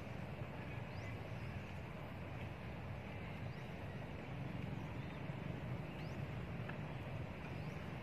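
Steady outdoor background noise: a low, even rumble, with a few faint short chirps high above it.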